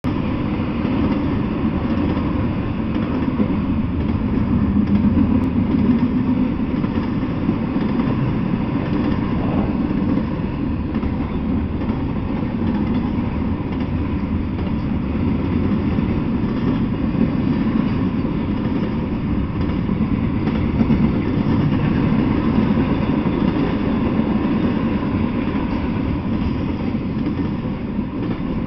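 Double-stack intermodal freight train passing: a steady rumble of steel wheels rolling on the rails, with the well cars clattering.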